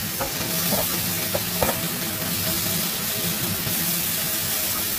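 Tofu, spinach and green pepper sizzling in soy sauce in a nonstick wok, stirred with a slotted spatula that scrapes and taps the pan a few times in the first two seconds.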